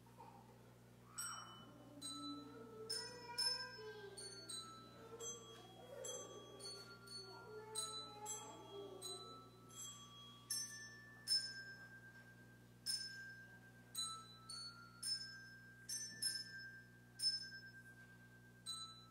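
A slow melody of single struck, bell-like notes, each ringing briefly. It begins about a second in, over a faint steady hum.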